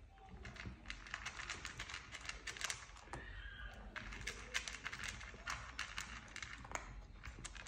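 Kittens' claws clicking and scratching in rapid, irregular patters as two kittens scramble and play-fight on the carpeted base of a cat tree and onto a hard floor.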